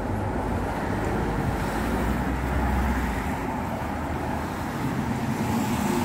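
Road traffic passing on a wet street: steady tyre hiss and engine rumble, the low rumble easing about three seconds in.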